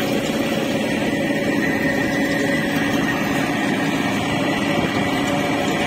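A river boat's engine running steadily during a crossing: a constant drone with a faint high whine above it.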